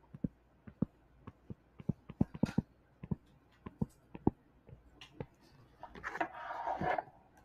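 Stylus tapping and clicking on a tablet screen in quick, irregular clicks while handwriting, with a short soft rush of noise about six seconds in.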